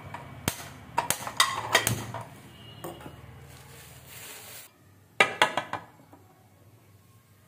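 Aluminium pressure cooker being handled on a gas stove: clicks and metal knocks as the stove knob is turned, a hiss of about a second and a half that cuts off suddenly, then a loud metal clatter about five seconds in as the lid is set on the cooker.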